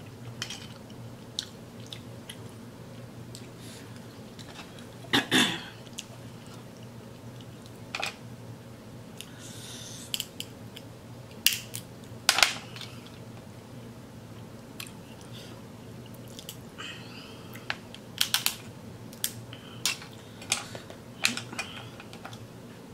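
Close-up eating sounds of shellfish: intermittent chewing with scattered sharp clicks and taps as mussel shells and food are handled over the plate. A low steady hum runs underneath.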